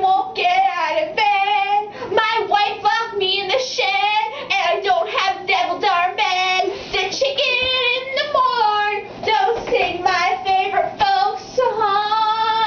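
A young woman singing solo and unaccompanied, in phrases with short breaks between them and a wavering vibrato on the held notes.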